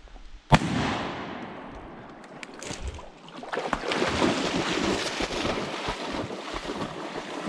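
A single shotgun shot about half a second in, with a long fading echo. From about three and a half seconds in, water splashes and sloshes steadily.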